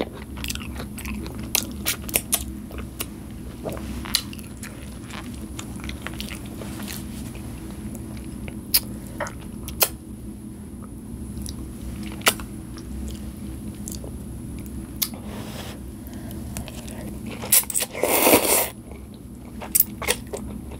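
Close-miked chewing and mouth clicks of someone eating chicken noodles, over a steady low hum, with one louder slurp of noodles near the end.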